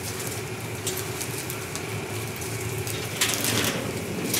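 Cut leafy branches rustling as they are handled, briefly about a second in and more strongly about three seconds in, over a steady low hum.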